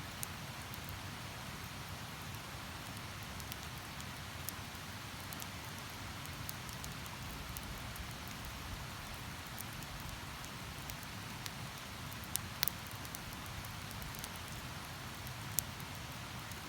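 Campfire crackling, with scattered sharp pops, the loudest a few near the end, over a steady rushing hiss of running river water.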